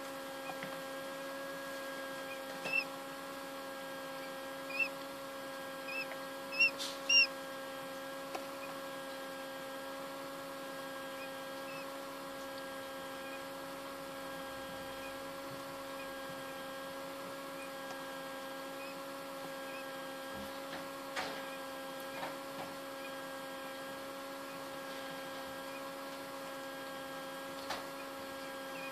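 Small egg incubator running with a steady electrical hum, while a quail chick gives several short high peeps in the first seven seconds or so; a few faint clicks come later.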